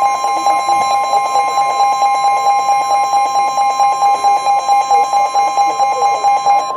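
Emergency Alert System attention signal: two steady alarm tones sounding together, loud, with a slight pulsing a few times a second. It is the alert tone that comes before a broadcast severe thunderstorm warning.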